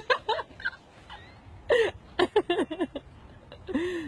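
A person's voice in short bursts, in three groups: at the start, in the middle and near the end.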